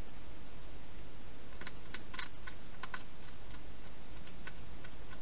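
Wild hedgehog eating at food bowls inside a plastic feeding box: a scatter of small, irregular crisp clicks of chewing dry food and nosing the bowls, one a little louder about two seconds in, over a steady microphone hiss.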